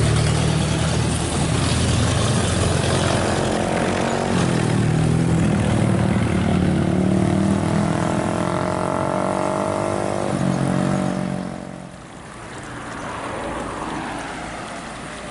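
Intercity bus passing close by, its diesel engine note rising slowly, then dropping away sharply about eleven seconds in as it goes past, leaving a quieter traffic rumble.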